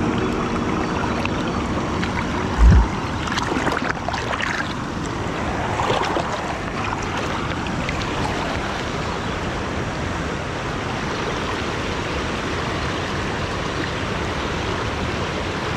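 Steady rush of river water at a rocky dam, with a brief low thump about three seconds in.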